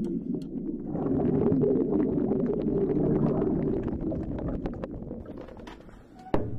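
Muffled underwater water noise from a submerged camera, a gurgling, bubbling rush with many faint crackling clicks that swells and then fades away. Near the end a single sharp drum hit, a frame drum struck once.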